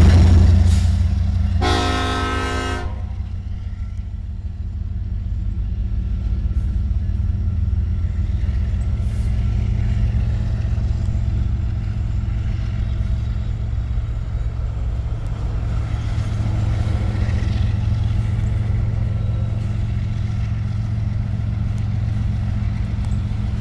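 Train horn sounding one short blast about two seconds in, over a steady low rumble from the train.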